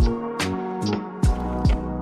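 Background music with a steady electronic beat: kick drum and snare hits about every 0.4 seconds under sustained bass and synth notes.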